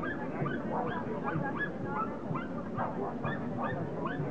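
Dogs barking and yapping, with many short high calls overlapping throughout.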